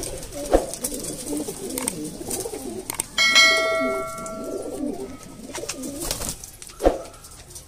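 A flock of domestic pigeons cooing continuously. About three seconds in, a bell chime rings out loudly and fades over about a second, and there are two sharp knocks, one near the start and one near the end.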